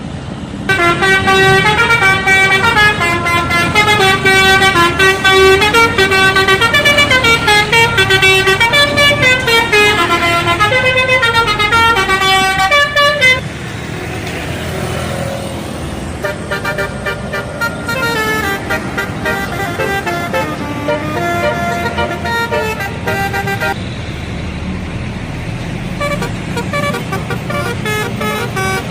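Indonesian bus 'telolet' horn, a multi-trumpet musical air horn, playing a fast melody of stepping notes, loud for the first half. About halfway through it drops to a fainter melody over the low rumble of engines and traffic.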